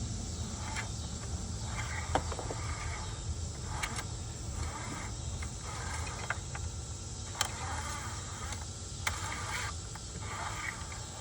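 A steady high-pitched insect chorus over a low, steady rumble, with a few short rustling patches and several brief sharp clicks.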